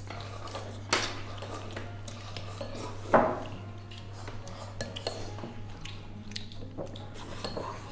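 Chopsticks clicking and knocking against porcelain rice bowls during a meal, with two louder knocks about one and three seconds in and a few lighter clicks later, over a low steady hum.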